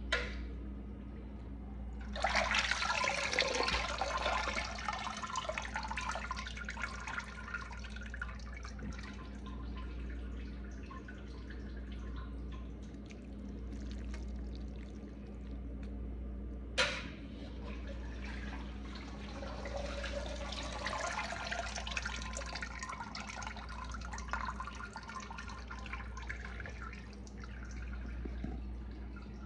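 Water pouring and splashing over chitterlings in a stainless steel pan, in two long spells, with a sharp click just past halfway. A low steady hum runs underneath.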